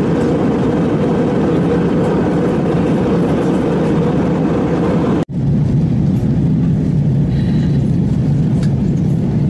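Steady airliner cabin noise: jet engines and airflow as a continuous rumble and rush. Just past halfway it cuts out for an instant, then resumes with a deeper rumble.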